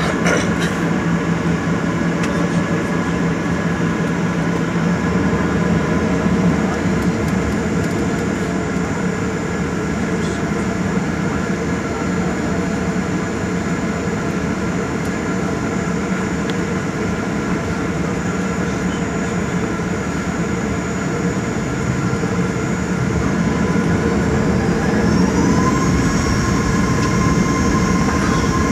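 Boeing 737-900ER's CFM56-7B jet engines heard from inside the cabin, running steadily with a noisy rush and several held whining tones. About 25 seconds in, the whine glides up in pitch and grows a little louder as the engines spool up.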